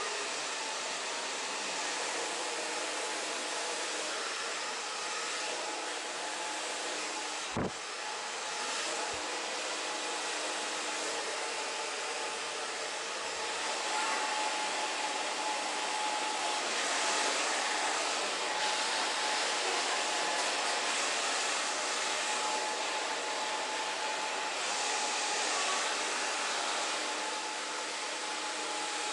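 Handheld hair dryer running steadily as short hair is blow-dried: a continuous rushing of air with a faint steady whine. One sharp click partway through.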